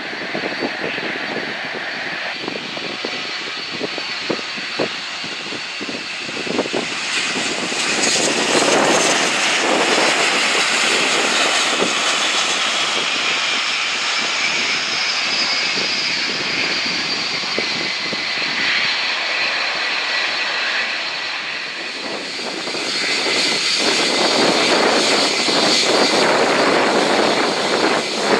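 Jet airliner engines of a British Airways Boeing 777 landing. The noise swells about eight seconds in as it touches down and rolls past, then eases; near the end another airliner's jet engines rise as it sits on the runway for takeoff.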